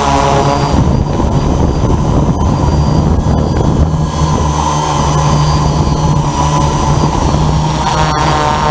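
Selecta Farmeyes ROS UAV drone's propellers and motors running with a steady, loud hum of several pitches. The high part of the sound fades about a second in and comes back near the end.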